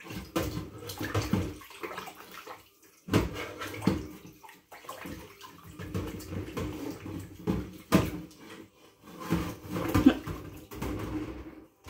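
Dishwater sloshing and splashing in a stainless steel sink as a large dinner plate is washed by hand, in irregular bursts with a few sharp knocks.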